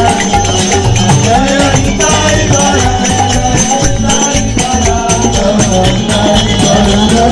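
Loud music with a steady beat and a melody.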